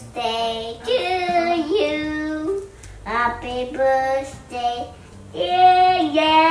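A high, child-like singing voice: three sung phrases with held notes and short pauses between them.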